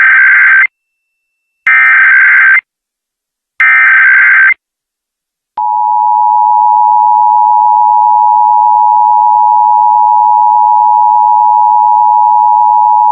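Emergency Alert System alert tones: three screeching SAME header data bursts, each about a second long and about two seconds apart, then the steady two-tone EAS attention signal from about five and a half seconds in. This is the start of a broadcast EAS alert, the header and attention tone that come before the nationwide test's voice message.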